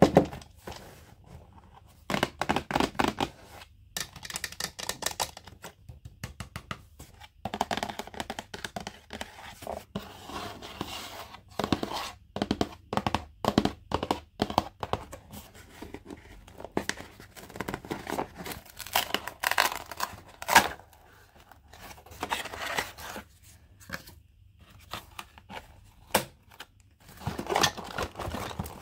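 Plastic toy wrapping and packaging being crinkled and torn open by hand, in irregular bursts with short pauses and a few sharp clicks.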